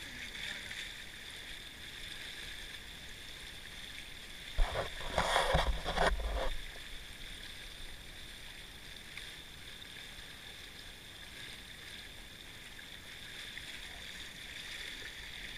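Water rushing along the hulls of a sailing kayak catamaran under way, a steady hiss. About five seconds in comes a loud bump followed by roughly two seconds of loud rubbing and rumbling.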